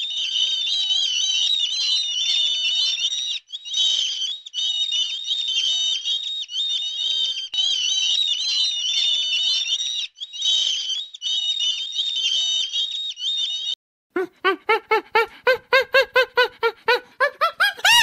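A flock of seabirds calling over one another, high and shrill, with a couple of brief lulls. About fourteen seconds in it gives way to a rapid run of loud, harsh repeated calls, about five a second, climbing in pitch.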